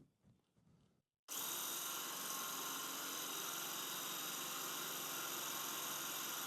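Power drill with a 1/4-inch Bosch hex porcelain tile bit drilling into porcelain wall tile, grinding through it. The sound cuts in abruptly about a second in and runs steadily and loudly.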